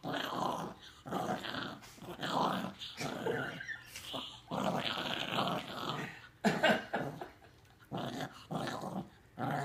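Maltipoo puppy growling over her bone, guarding it: a string of growls, each a second or less with short breaks between, and one sharper, louder one about six and a half seconds in.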